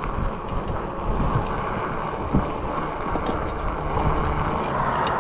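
Wind buffeting the microphone and bicycle tyres rolling on a rough gravel road while riding, with a few scattered small clicks and rattles.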